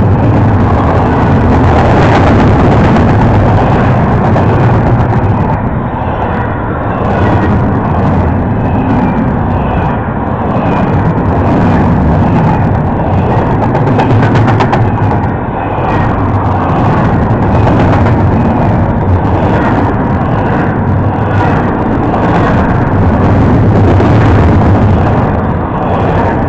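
Double-stack intermodal freight train passing close by: a loud, steady rumble of steel wheels on rail, with repeated clicks and knocks from the wheels and cars going by.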